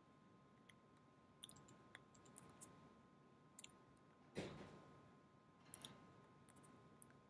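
Near silence: room tone with a faint steady hum, scattered faint clicks, and one short soft noise about four and a half seconds in.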